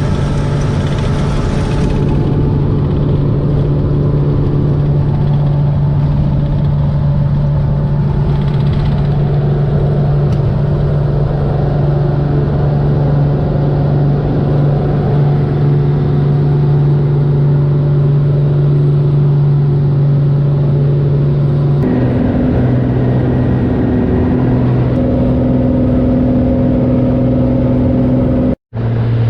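Cessna 180 floatplane's piston engine and propeller running steadily with a strong low drone. The engine note changes to a different pitch about three quarters of the way through, and the sound cuts out for a split second near the end.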